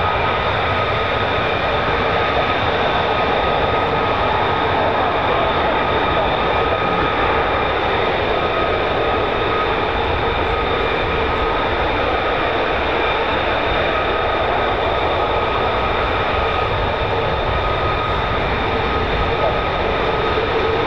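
Military jet engines running steadily at idle on the airfield: an even rush of noise under a constant high-pitched turbine whine made of several held tones.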